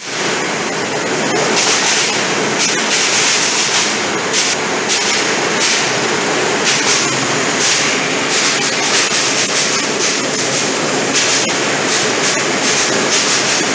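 Whole unpeeled potatoes tumbling off a roller conveyor and dropping onto steel: a dense, steady clatter of many small knocks over the noise of the running processing line.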